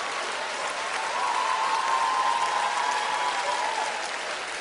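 Studio audience applauding steadily, with a held tone sounding over the clapping from about a second in until near the end.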